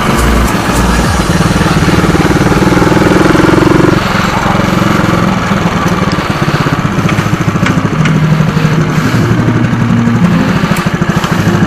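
Motorcycle engine running through a bullet-style aftermarket exhaust pipe fitted with a silencer insert, the quick steady pulses of the exhaust note rising and falling in pitch as the engine speed changes.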